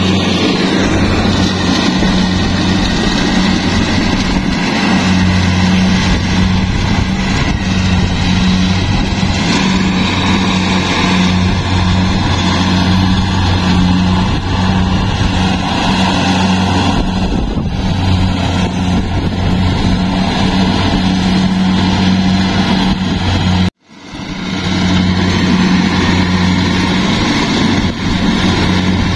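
Rice combine harvester's diesel engine running steadily, a constant low hum with noise from the machine's working parts. It cuts out abruptly for a moment about three-quarters of the way through and then returns.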